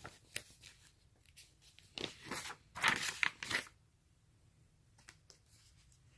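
Paper pages of a paperback picture book being handled and turned: a few light taps, then two crinkly swishes about two and three seconds in, the second the louder.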